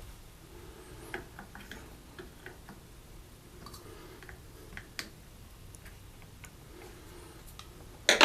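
Light, scattered clicks and ticks of a small screwdriver working at a plastic shower handle, with one loud sharp knock near the end.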